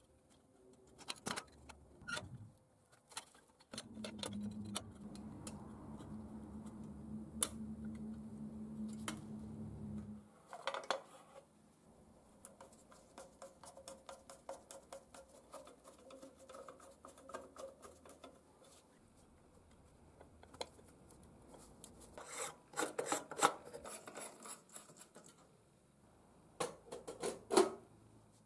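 Metal street-lamp parts and glass panels handled and fitted together, with sharp clicks, knocks and a clatter of sheet metal. A steady low hum runs for about six seconds near the start, followed by a run of light quick clicks as a screwdriver drives screws into the lamp's top. The loudest clattering comes near the end.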